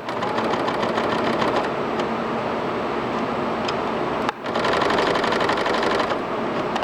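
Sewing machine running, its needle mechanism clattering rapidly. It stops for a moment a little over four seconds in, then runs again.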